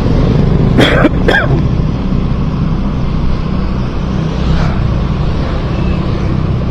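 Motorcycle engine and road noise while riding, a steady low rumble. Two short, sharp sounds come close together about a second in.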